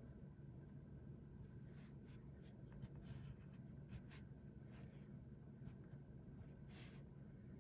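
Pilot Elite fountain pen nib scratching faintly on paper in short, irregular strokes as lines are drawn, over a low steady hum.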